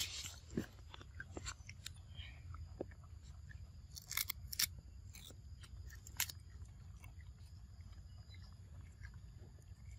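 Young macaques biting and chewing crisp cucumber: a few sharp, separate crunches, the loudest cluster about four to five seconds in and another near six seconds.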